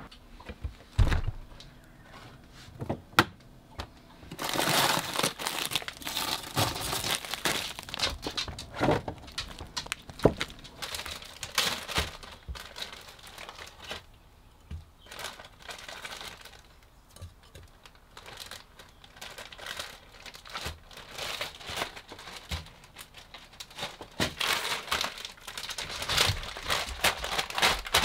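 Plastic bag of frozen berries crinkling and rustling in irregular bursts as it is handled. There are a few sharp knocks in the first few seconds.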